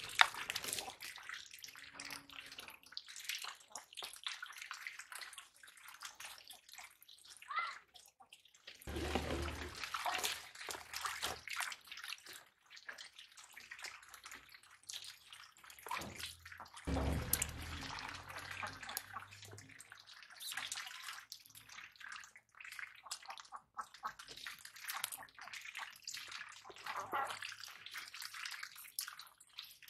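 Small fish being washed by hand on a woven bamboo tray: irregular splashing and trickling water as the hands rub through the wet fish, with two heavier gushes of water, about nine and seventeen seconds in.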